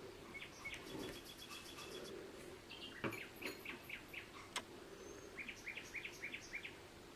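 Faint bird chirping in short runs of quick chirps, with a single sharp click about four and a half seconds in.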